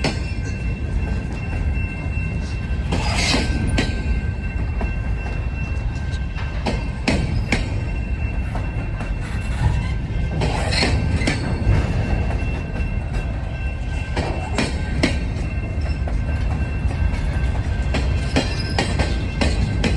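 Freight train rolling past: a steady low rumble of wheels on rail with irregular sharp clicks from the wheels over the rail joints. A faint, steady, high-pitched wheel squeal runs underneath.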